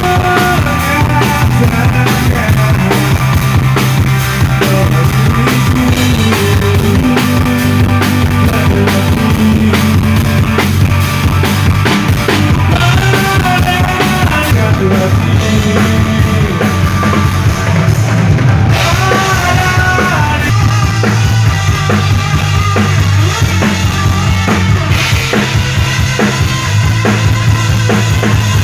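Rock band playing live and loud: drum kit with kick drum and snare under steady bass notes and a melodic line.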